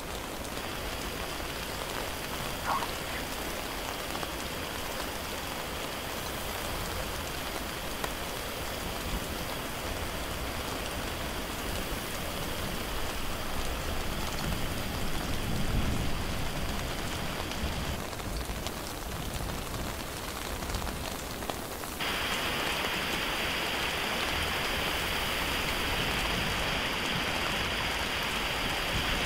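Rainwater runoff rushing and splashing over rocks down a flooded trail, a steady hiss of flowing water. It becomes louder and brighter about three quarters of the way in.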